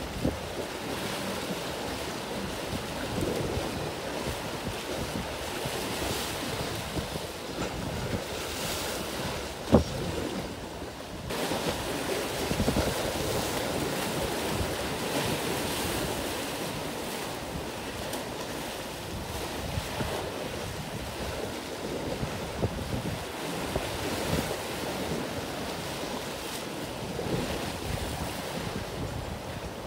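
Wind buffeting the microphone over the wash of choppy sea waves, with one sharp knock about ten seconds in.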